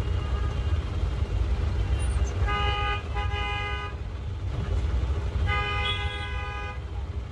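Vehicle horn honking in street traffic: two blasts close together about two and a half seconds in, then one longer blast near six seconds. A steady low rumble runs underneath.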